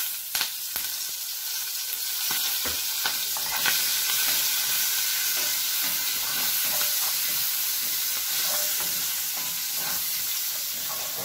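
Curry leaves sizzling and spluttering in hot oil with fennel powder in a cast-iron pan, a little louder after a couple of seconds, while a spatula stirs them with scattered light clicks.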